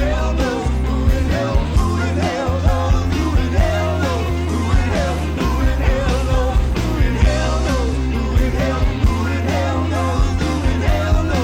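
Rock band recording from a cassette tape: drums keeping a steady beat under bass guitar, guitars and keyboards, with a voice singing over them.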